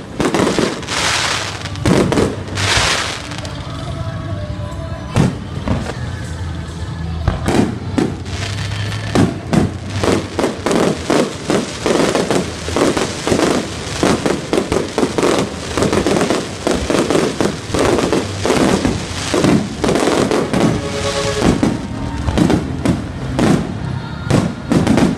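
Aerial fireworks shells bursting in a string of bangs and crackles that grows rapid and dense about a third of the way in, with music playing underneath.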